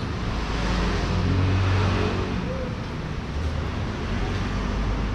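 Road traffic: a motor vehicle's engine hum swells and fades as it passes, over a steady low rumble.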